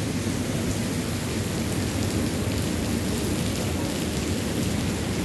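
Steady rain falling, an even hiss with a heavy low rumble underneath.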